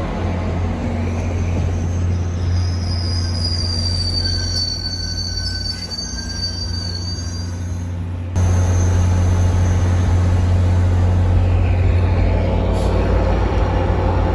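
Diesel-hauled MBTA commuter rail train moving through the station: a steady low rumble, with the wheels squealing in a thin high whine around the middle. The sound changes abruptly about eight seconds in.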